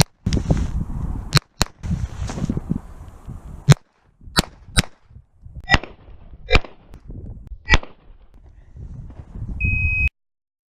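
.22 LR Ruger Mark III 22/45 pistol firing about eight sharp shots, some in quick pairs and some single, with low wind rumble on the microphone between them. A short high beep sounds near the end, just before the sound cuts off.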